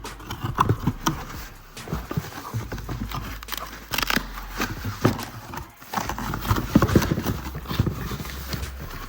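Cardboard box and packaging being cut open and handled with a box cutter: irregular knocks, taps, scrapes and rustles.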